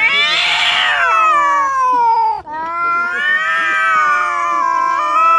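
Domestic cat yowling in long, drawn-out calls at a steady pitch, the first turning rough and raspy for about half a second near its start. A brief break comes about two and a half seconds in before the next long yowl.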